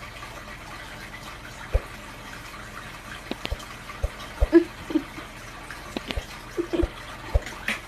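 Steady rushing noise like running water, with scattered soft knocks and a few short squeaks.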